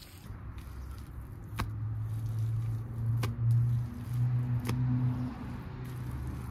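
Hands scraping and patting loose dry garden soil, with a few sharp clicks. Over it a low engine drone swells from about a second and a half in and dies away after about five seconds.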